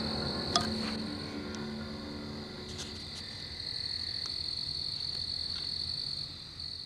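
Steady high-pitched chorus of insects. Low musical notes fade out over the first three seconds, and there is a sharp click about half a second in.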